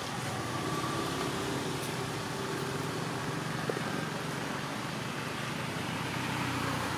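Steady low hum and hiss of background noise, with one faint tick about three and a half seconds in.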